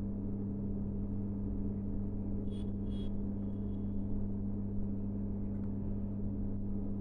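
Steady low electrical hum throughout, with two short faint ticks about two and a half and three seconds in.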